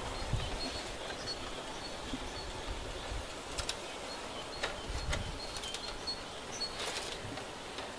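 Outdoor garden ambience: small birds chirping now and then over a steady hiss, with a few sharp clicks.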